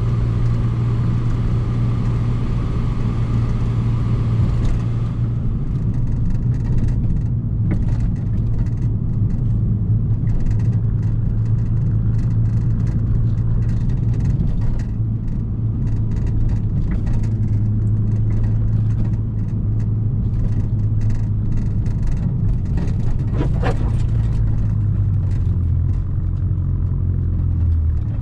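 Volkswagen Mk6 GTI's 2.0-litre turbocharged four-cylinder engine and exhaust droning steadily on the move, picked up by a microphone mounted outside the car. The drone drops slightly in pitch near the end as the car eases off.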